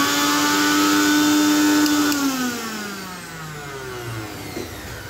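Bajaj 500 W mixer grinder's motor running at full speed with no jar fitted, a steady high whine, then cut off about two seconds in and spinning down with a falling whine over the next two seconds. A light knock comes near the end. It runs with its switch bypassed, which shows that the motor is sound and the switch is at fault.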